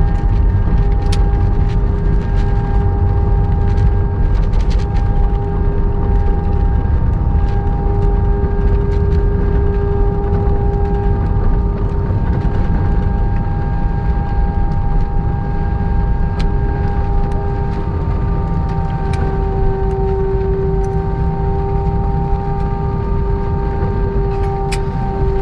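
Airliner cabin noise during the landing: a loud, steady low rumble of engines and airflow with a steady engine whine, and scattered light rattles.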